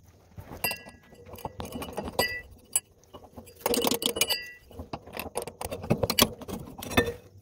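Steel V-belt pulley clinking and scraping against a shaft as it is worked on by hand, with a run of sharp metal knocks and three short metallic rings.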